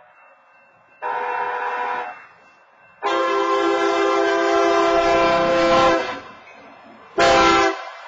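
Union Pacific diesel locomotive's air horn sounding a chord in three blasts: one of about a second, a longer one of about three seconds, then a short one near the end. It is a grade-crossing warning as the train approaches.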